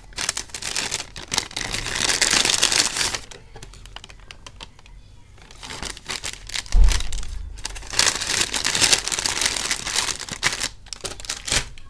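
Plastic packaging bags crinkling and rustling as they are handled, in bursts, with a quieter stretch in the middle. A dull thump about seven seconds in is the loudest moment.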